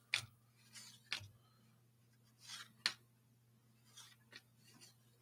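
Cardboard baseball cards being flicked through and slid against one another: several short, faint swishes and flicks, over a steady low hum.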